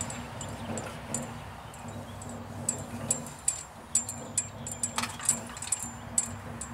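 Light, quick metallic clicks with a bright ring, few at first, then about three a second from a couple of seconds in, over a faint steady hum.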